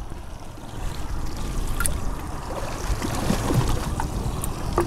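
Steady wash of sea water and wind around a boat offshore, with a few faint small clicks as a metal snap swivel is clipped onto a trolling planer's ring.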